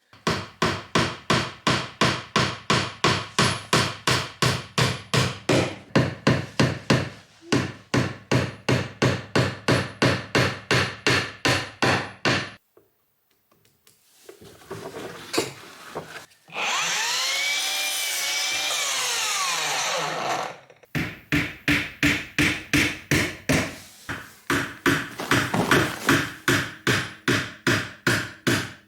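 Hand woodworking on a small wooden bird-feeder house: a long run of even, rapid strokes, about three a second, that stops and restarts several times. In the middle, a steady mechanical whir lasts about four seconds.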